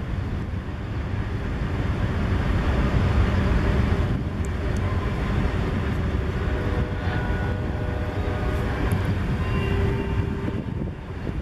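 Freight cars of a passing train rolling by: a steady low rumble of steel wheels on the rails, with faint squealing tones in the second half.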